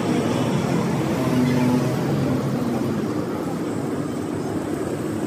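A steady low rumble of background noise, with faint voices.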